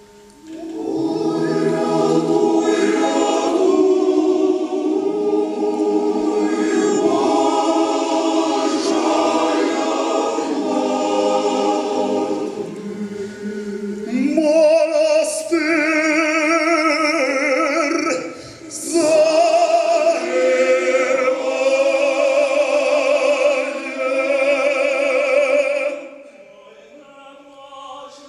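Male choir singing unaccompanied, many voices together in sustained chords. The chords shift up in pitch about halfway through, break off briefly, and the singing falls away near the end.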